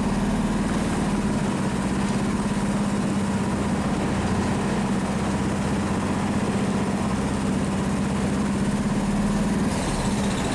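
Longtail boat engine running steadily, dropping off near the end. The boat has no neutral or reverse gear.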